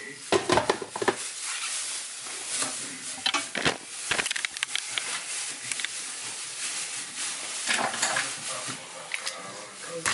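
Cooking liquid and chiles poured into a glass blender jar, with clinks and knocks of the jar and utensils in the first second and a couple more about four seconds in, over a steady hiss. The blender is not running.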